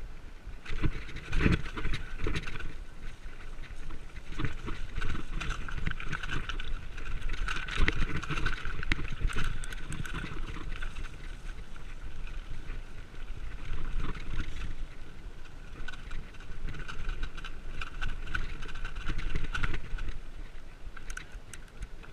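Mountain bike ridden down a dirt singletrack: tyres rumbling over the ground and the bike rattling over bumps, with sharp knocks about a second and a half in and around eight seconds in.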